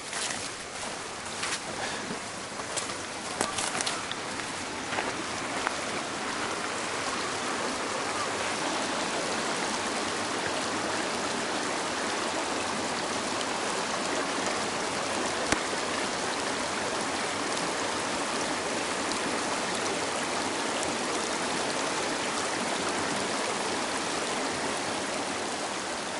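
Shallow mountain creek running over rocks, a steady rushing. In the first few seconds, scattered sharp crackles ride over it.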